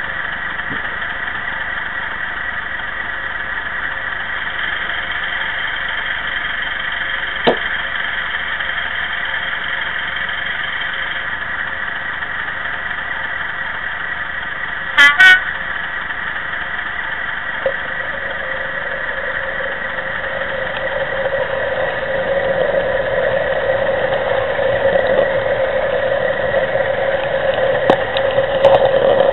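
DCC sound decoder of a model diesel locomotive playing a diesel engine idling, with a short horn sounding twice about halfway through. Then the engine sound builds up and gets louder as the train pulls away.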